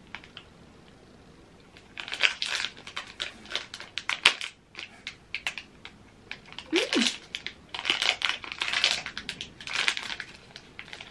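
Shiny plastic protein-bar wrapper crinkling in irregular bursts as it is peeled back from the bar, starting about two seconds in.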